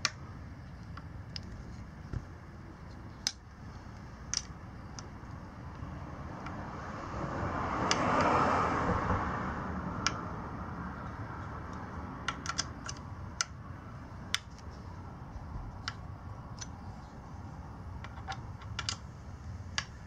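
Scattered sharp metal clicks and ticks of a hex key and hands working the handlebar stem's clamp bolts while snugging them. A soft rushing noise swells and fades about eight seconds in.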